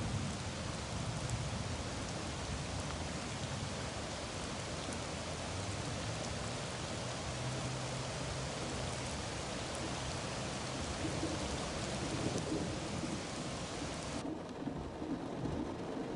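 Heavy rain pouring steadily, a dense even hiss. About two seconds before the end the sound changes abruptly and the high hiss drops away.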